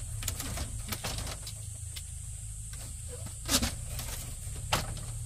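A few sharp knocks and taps, the two loudest in the second half, over a steady low hum and a steady high-pitched tone.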